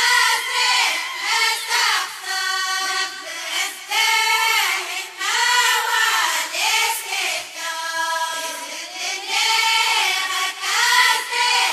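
Ahwach chorus of Amazigh voices singing together in high-pitched phrases that rise and fall, each about a second or two long.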